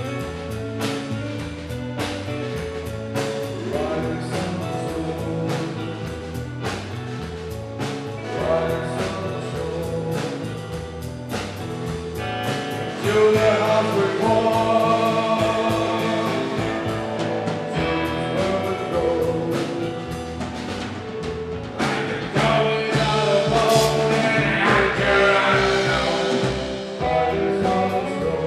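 Live rock band playing drums, electric guitar through amplifiers and a male lead vocal. The band grows louder about thirteen seconds in.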